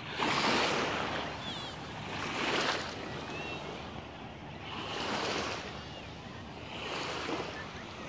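Small sea waves washing onto the beach, surging and falling back about every two to two and a half seconds.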